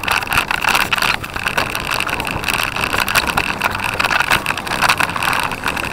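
Continuous rattling and jolting from a bicycle-mounted camera as the bike is ridden over rough ground, with wind rushing over the microphone.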